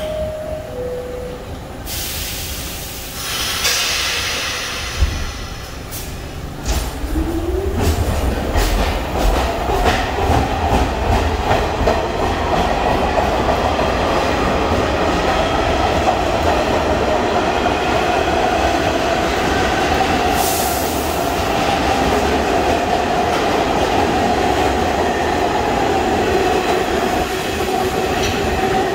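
A New York City Subway A train departing a station. A two-note falling door chime sounds at the start, then a sharp hiss of air, and the train pulls out with its motors whining up in pitch and steadying, over the rumble and clatter of the wheels on the rails.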